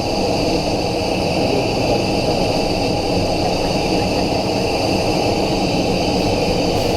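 Steady cockpit noise of a Cessna Citation XLS business jet in flight: an even rushing of airflow and turbofan engines with a faint steady high whine.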